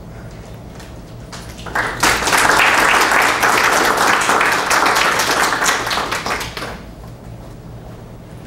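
Audience applauding: scattered claps start about a second and a half in, swell into full applause that lasts about five seconds, then die away.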